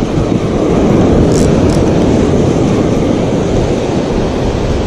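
Wind buffeting the action camera's microphone in a loud, rough rumble, over the rush of surf breaking on the beach.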